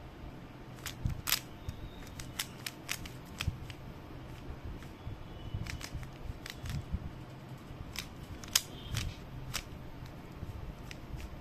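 Stickerless 3x3 puzzle cube being turned by hand: its plastic layers click and snap as they rotate, in irregular quick runs of turns with short pauses, sparser near the end.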